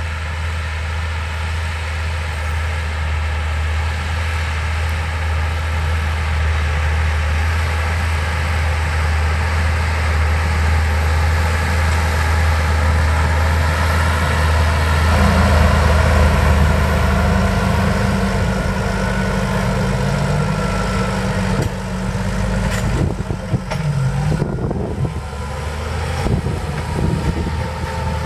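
Fendt 720 Vario tractor's six-cylinder diesel engine working steadily under load, pulling a subsoiler, getting louder as it comes closer; its note shifts about halfway through. Wind buffets the microphone in the last few seconds.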